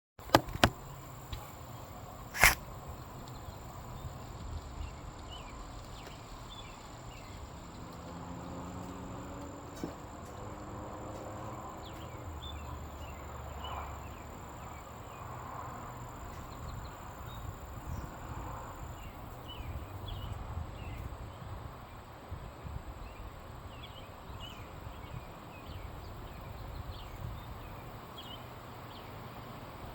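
Outdoor ambience of insects chirping faintly over a low steady rumble, with a few sharp clicks in the first couple of seconds.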